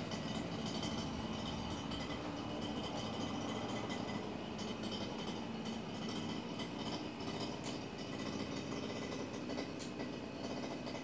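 A steady mechanical hum with a faint high whine, even throughout.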